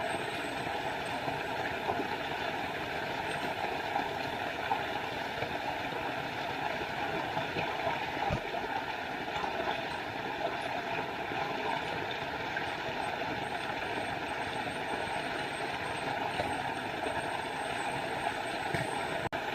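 Small forest waterfall, water rushing and splashing steadily.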